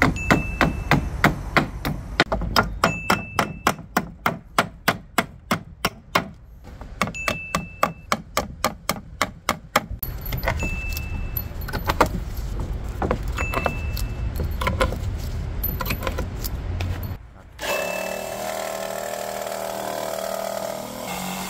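Hammer blows on nailed pallet boards in a quick, regular run of about four or five strikes a second, then irregular clicks and scraping as nails are pried out of a board with a claw hammer. In the last few seconds a Bosch corded jigsaw starts and runs steadily, cutting a pine board.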